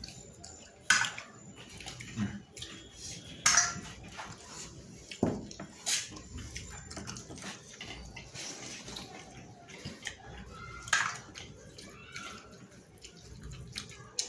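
Eating sounds: mouth noises of a man chewing rice eaten by hand from a steel plate, with several sharp clicks scattered through.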